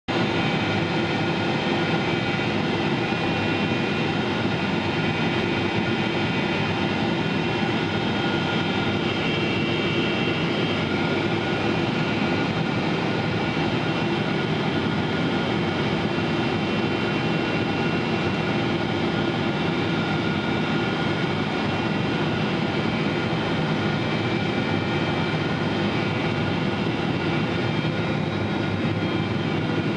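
Steady drone of jet engines and rushing air inside the cabin of a Boeing 777-300ER on final approach, with several steady whining tones running through it. The engines are GE90-115Bs.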